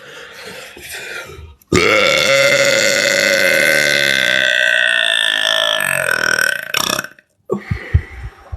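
A woman's long, loud belch that starts about two seconds in and holds steady for about five seconds before trailing off.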